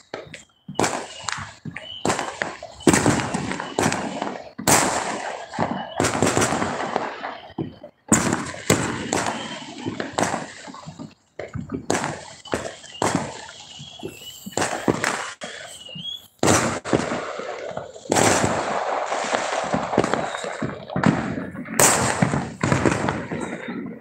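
Fireworks and firecrackers going off one after another, sharp bangs with crackling between them and hardly a pause.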